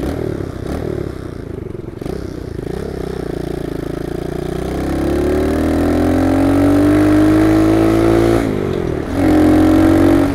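Monkey bike's small single-cylinder four-stroke engine, heard from the rider's seat, running rough at low revs and then revving up under acceleration, its pitch climbing for several seconds. Near the end the revs dip sharply and pick up again.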